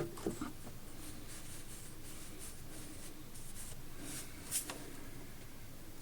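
Faint scraping and rustling of something being handled, with one sharper scrape about four and a half seconds in.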